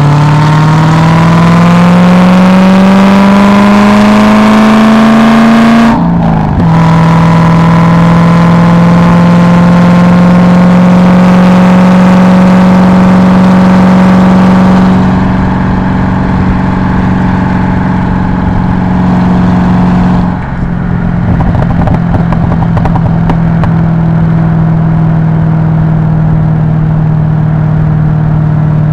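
Car engine heard from inside the cabin under acceleration: the revs climb steadily for about six seconds, drop at a gear change, then hold a fairly steady pull. The engine eases off about halfway through and dips briefly again about two-thirds of the way in before running on steadily.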